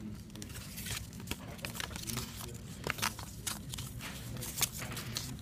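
Paper instruction leaflet being handled and its pages flipped, giving irregular rustles and crackles.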